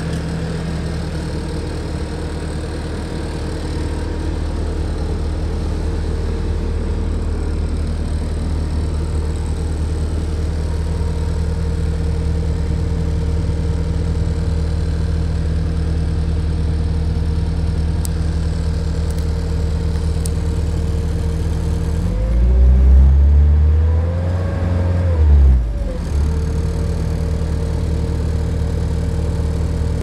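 Bobcat skid steer's diesel engine idling steadily. About 22 seconds in it rises in pitch and loudness for roughly four seconds, then settles back to idle.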